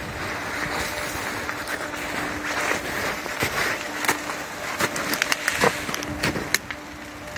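Footsteps crunching through snow and brush, with twigs and branches brushing and snapping close by; a run of sharp snaps comes in the second half, the loudest shortly before the end.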